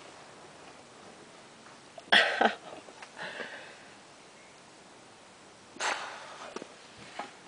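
Two sharp, breathy exhalations, about two seconds in and again near six seconds, from a person in pain with a finger trapped in a car door latch.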